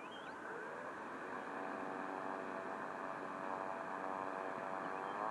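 Electric motor and propeller of a Seagull Models Silence Twister RC plane running up on the ground: a steady whine that creeps slowly higher, then rises sharply at the very end as the throttle is opened for the takeoff roll.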